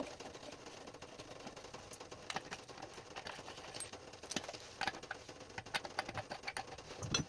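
Irregular light clicks and small metallic clinks of tools and plumbing fittings being handled.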